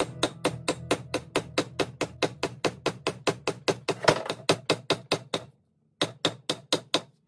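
Quick, even hammer taps on a metal wedge, about five a second, driving it into the end of the new handle in the eye of a Council Tool Velvicut boy's axe. The taps stop for a moment about five and a half seconds in, then a few more follow.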